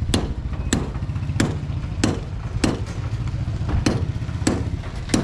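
Steady run of sharp hammer strikes, a little under two a second, over a steady low engine hum.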